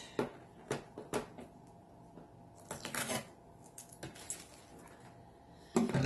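Light clicks and a short rasp as packing tape is peeled off a plastic humidifier tank and the hard plastic parts are handled, with a louder plastic knock near the end.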